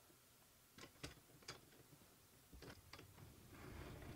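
Light metallic clicks and knocks as an aluminium planer carriage's linear bearing blocks are fitted onto steel guide rods, with a brief sliding rasp about three and a half seconds in as the carriage slides down the rods.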